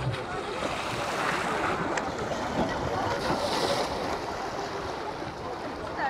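Small sea waves lapping and splashing close to the microphone in shallow water, with some wind on the microphone.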